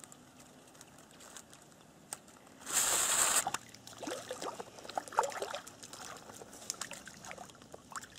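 A hooked crucian carp splashing at the surface among reeds: a loud rush of splashing about three seconds in as the fish is struck, then a run of short, irregular splashes as it thrashes on the line.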